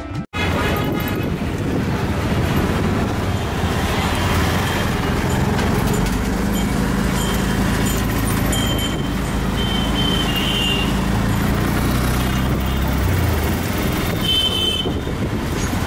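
Busy street traffic: a steady mix of engine and road noise, with short horn toots around the middle and again near the end.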